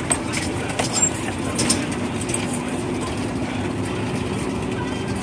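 Scania truck engine running steadily as the truck drives over a rough quarry track, heard inside the cab, with a few short rattles and knocks in the first two seconds.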